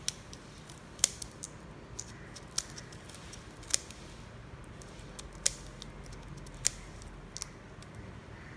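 Kitchen knife cutting into raw prawns down the middle: irregular crisp clicks and snips, roughly a second or more apart.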